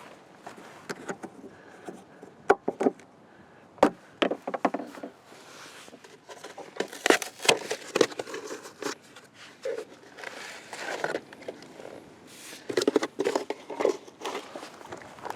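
Irregular clicks, knocks and short scrapes of hands handling hard objects, coming in clusters with pauses between.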